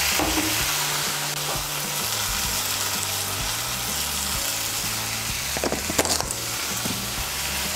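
Mustard-paste masala with onion and tomato sizzling steadily in hot oil in a non-stick pan, with a couple of light clicks about six seconds in.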